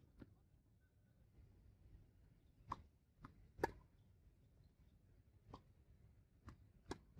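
Tennis ball being struck by rackets and bouncing on a hard court during a rally: a series of sharp, separate pocks, the loudest about three and a half seconds in.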